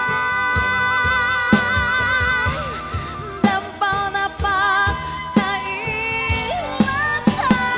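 Background music: a Sundanese pop song, a melody with heavy vibrato over a drum beat of about one hit a second.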